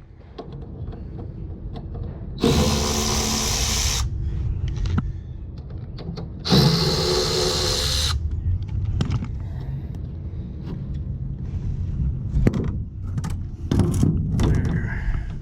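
Cordless drill/driver backing out the bolts of an HVAC unit's blower motor access panel, in two runs of about a second and a half each, with a steady low rumble and scattered clicks and knocks of handling between them.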